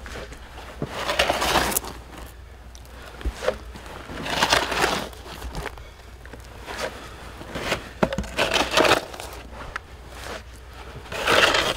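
A hand scoop scraping and digging into loose dirt several times, each scoop a short gritty scrape a few seconds apart, with the last one loudest near the end.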